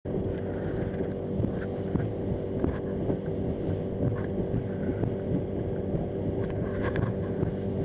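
Outboard motor of a fishing boat running steadily underway, a low drone under the rush of water and wind on the microphone, with a few light knocks scattered through.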